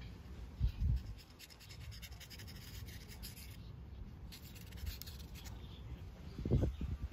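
Small screwdriver scraping and rubbing along a scooter's steel brake cam shaft as it is greased, with soft handling bumps near the start and again near the end as the cam is set against the brake backing plate.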